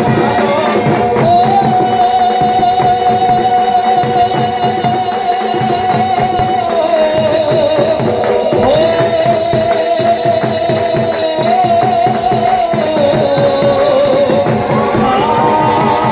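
South Asian folk dance music with a fast, steady drum beat under a long held, wavering melody line that dips and rises in pitch a few times and steps higher near the end.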